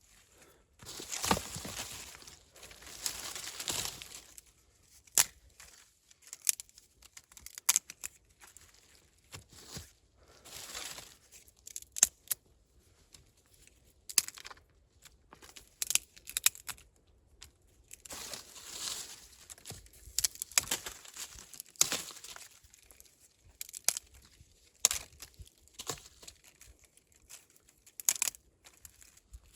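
Dry natural material being handled: irregular rustling and crinkling bursts, with scattered sharp snaps and clicks.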